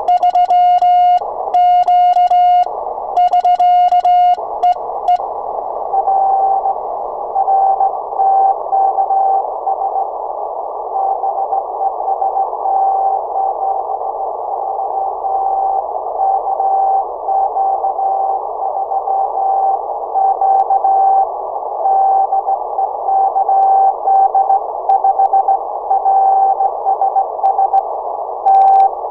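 Morse code from an Icom transceiver: for about the first five seconds the clean sidetone of the operator's own sending on a sideswiper key; then the other station's reply, a Morse tone keyed on and off amid a steady hiss of band noise. Near the end the clean sidetone of the operator's own sending starts again.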